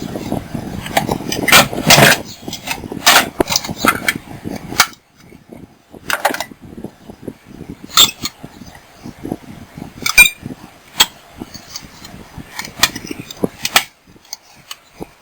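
Metal tools and parts clinking and knocking as they are handled, irregular and sharp, with a rougher rustling stretch of handling noise over the first few seconds.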